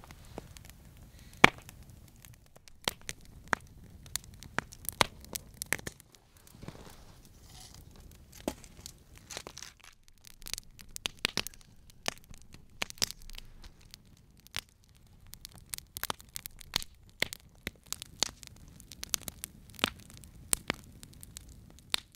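Wood campfire crackling, with irregular sharp pops over a faint steady hiss; one of the loudest pops comes about a second and a half in.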